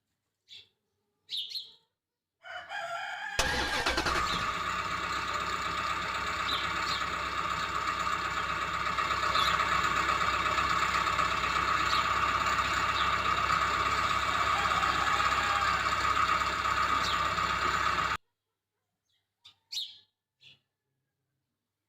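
A small motor running steadily with a strong whine, starting abruptly about three seconds in and cutting off suddenly near the end; short bird-like chirps come before and after it.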